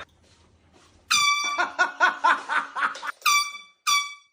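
Air horn blasts: one long blast about a second in, then two short blasts near the end, a steady high tone with a rich stack of overtones. A person's voice is heard between the blasts.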